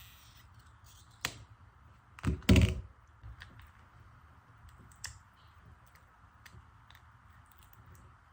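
Stretch-release adhesive pull tabs being pulled out from under an iPhone 13 battery. A sharp click comes about a second in, then a brief loud squeaky stretch about two and a half seconds in, followed by a few faint ticks.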